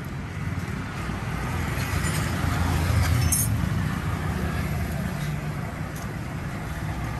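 Road traffic going by: a vehicle's engine rumble swells to its loudest about three seconds in and then eases, with one short sharp click near the peak.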